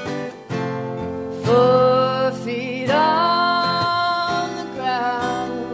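Live acoustic band music: a woman sings long, gliding notes over strummed acoustic guitar.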